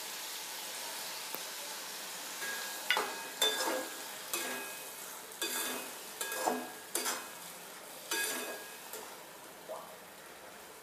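Poppy-seed and curd paste sizzling in hot oil in a kadai, with a spatula scraping and stirring against the pan in a run of strokes from about three seconds in; the sizzle dies down toward the end.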